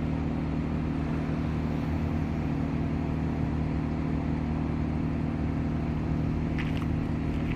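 Harbor Freight portable generator's engine running steadily at constant speed without load, muffled inside a soundproofed box.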